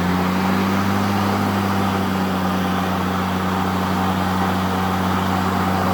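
EGO cordless battery lawn mower's electric motor and blade running at a steady speed: an even hum with a rush of air.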